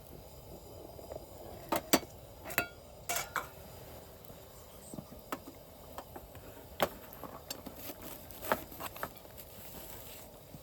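Eating utensils clinking and tapping against dishes and cookware: a series of sharp clinks, some ringing briefly, loudest about two seconds in, near the middle and past the eight-second mark.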